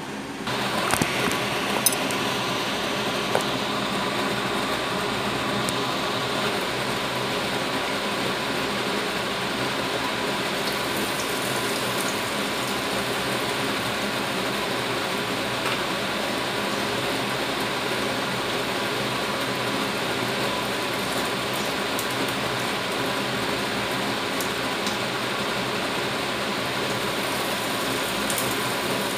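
Round patties frying in hot oil in a wide pan: a steady sizzle full of fine crackles that starts just after the opening moment. A few sharp clicks come about one to two seconds in.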